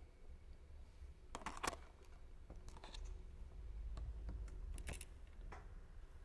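Faint scrabbling and clicking of a kitten's claws on a cardboard box as it grips and climbs the edge, with a couple of sharp scrapes about a second and a half in and again near five seconds, over a low hum.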